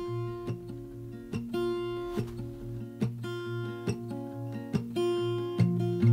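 Background music: acoustic guitar playing plucked notes and chords in an even rhythm.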